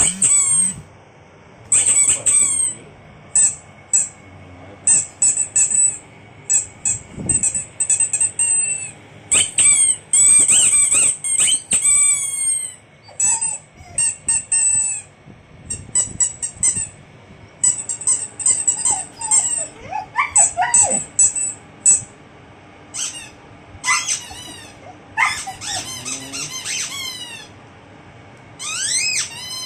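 Rapid, high-pitched squeaking in repeated bursts of one to two seconds, with short pauses between, and a few lower sliding squeals about two-thirds of the way in.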